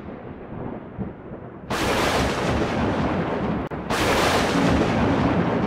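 Cinematic logo-intro sound effects: a low rumble, then two sudden loud hits about two seconds apart, each followed by a long noisy rush. Held musical notes come in near the end.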